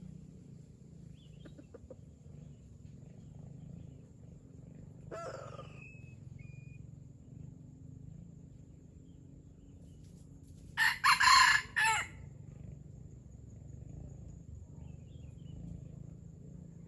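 A red junglefowl rooster crows once, a loud, short crow broken into three close parts, about two-thirds of the way in. About five seconds in there is a briefer, fainter call.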